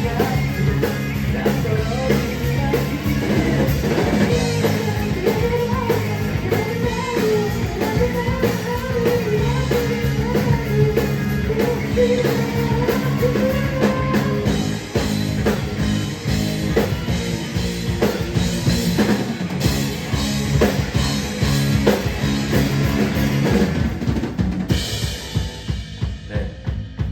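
Rock band playing live: a drum kit with bass drum and snare drives the beat under a melody line that wavers up and down. Near the end the fuller sound drops away to separate drum hits.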